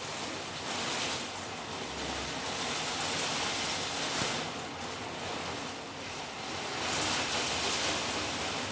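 Heavy rain of a squall line driven by gusty wind: a dense steady hiss that surges with the gusts, about a second in, around four seconds and again around seven to eight seconds.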